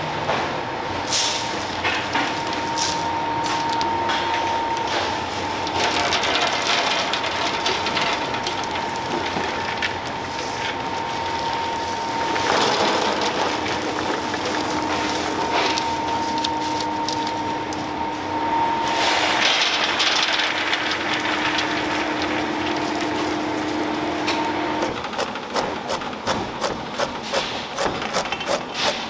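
Chopped nuts and walnut halves pouring and rattling off metal baking trays onto paper-lined sheet pans, in swells, over a steady background hum. Near the end, a knife chops walnuts on a cutting board in quick, even strokes, about four a second.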